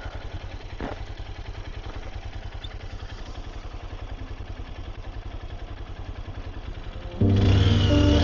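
Motorcycle engine idling with a steady, even low pulse; about seven seconds in, louder music with held tones comes in over it.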